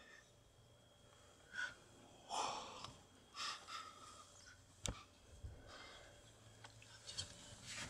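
Quiet breathing and faint whispered breaths close to the microphone, a few short puffs, with a sharp click about five seconds in.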